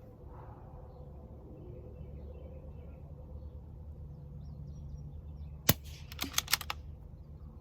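A single shot from a Bergara B14R .22 LR bolt-action rifle, a sharp crack about two thirds of the way in, followed within a second by a quick run of smaller metallic clicks as the bolt is cycled for the next round. A steady low wind-like rumble runs underneath.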